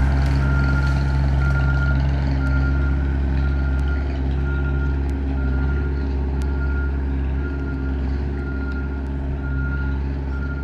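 Diesel engine of a rented skid steer running steadily under load while its backup alarm beeps at an even pace, the sign that the machine is reversing, as when back-dragging gravel.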